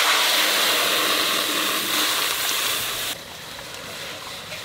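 Water poured into a hot iron kadai over a wood fire, hissing loudly as it flashes to steam on the hot metal; the hiss drops off sharply about three seconds in, leaving quieter pouring.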